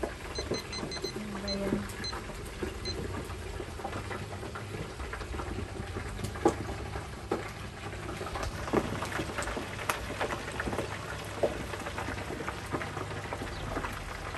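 Smelt deep-frying in hot oil in an electric deep fryer: a steady sizzle full of sharp pops and crackles. In the first few seconds a digital kitchen timer gives several short beeps as its buttons are pressed.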